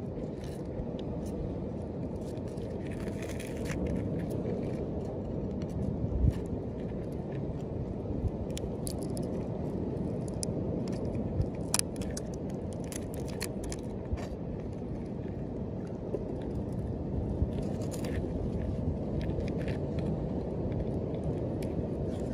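A metal knife blade scraping and picking moss and growth off a small turtle's shell: scattered scratches and sharp little clicks, a few louder ones, over a steady low rumble.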